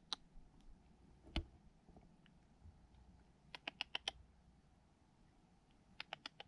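Short runs of sharp, light clicks, several in quick succession at a time, with a single duller knock about a second and a half in, over a quiet background.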